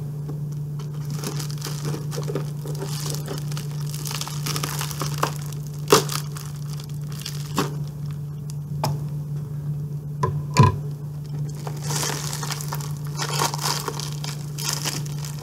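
Heavily taped mailing package being pulled and torn open by hand: packaging tape and wrapping crinkle and crackle with scattered sharp snaps, the loudest one a little past halfway. A steady low hum runs underneath.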